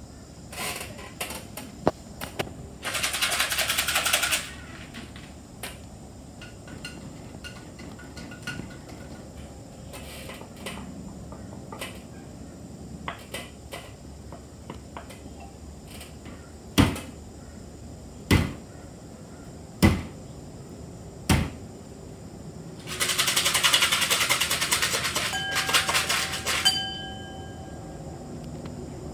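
Improvised household-object percussion: a jar shaken like a rattle in two long bursts, four sharp knocks about a second and a half apart between them, and a glass struck and ringing near the end.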